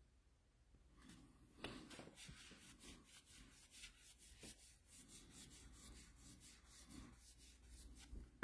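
Faint rubbing and light ticks of trading cards being slid and handled, starting about a second in.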